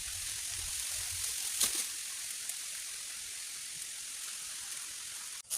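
Steady high-pitched outdoor hiss with a faint tap about one and a half seconds in, cutting off abruptly just before the end.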